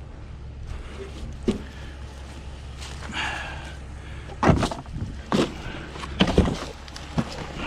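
A string of heavy thumps and knocks, four or five loud ones in the second half, over a steady low hum.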